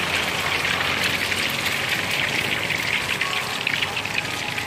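Egg batter frying in hot oil in a wok, a steady sizzling crackle as it is rolled onto a bamboo skewer into a telur gulung.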